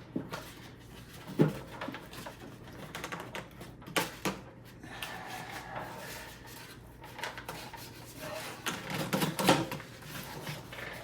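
Packing material and cardboard rustling and scraping, broken by several sharp knocks and clicks, as an oscilloscope is worked out of its shipping box.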